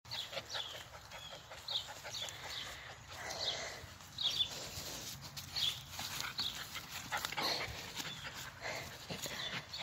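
Puppy whimpering and yipping in short, high-pitched cries, repeated every second or so, with rustling as it mouths and tugs at cloth.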